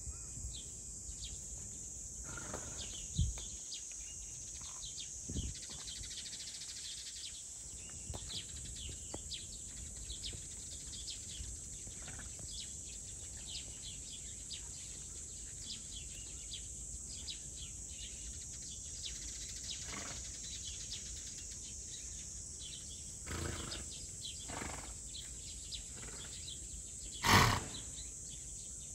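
Outdoor ambience: a steady high-pitched insect drone with many short bird chirps over it. A brief loud thump comes near the end.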